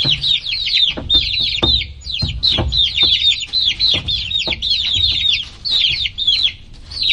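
A group of baby chicks peeping without pause: many short, high chirps, each falling in pitch, overlapping at several a second. A few soft knocks come in the first three seconds.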